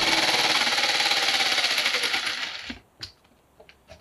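Corded jigsaw cutting through a luxury vinyl flooring plank, its blade rattling rapidly and stopping about two and a half seconds in, followed by a couple of light knocks.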